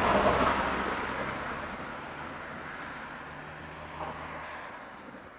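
Street noise with a low, steady engine hum, fading away steadily.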